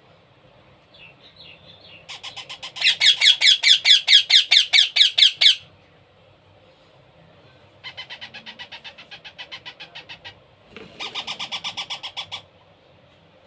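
Baby parrot's rapid, rhythmic begging calls, about six pulses a second, in three bouts with the first the loudest: the food-begging cry of a chick that is being hand-fed.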